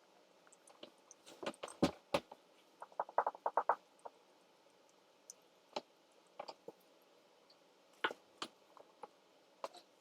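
Close-up eating noises: scattered mouth clicks and knocks, with a quick run of short squelchy pulses about three seconds in, from chewing chicken nuggets.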